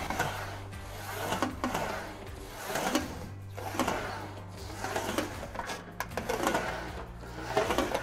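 Sheet steel panel being rolled back and forth through an English wheel with a rubber-banded upper wheel. It makes a rhythmic rumble and a wobbling of the sheet that swells with each pass, about once a second. The rubber top wheel only forms the curve, without stretching the metal.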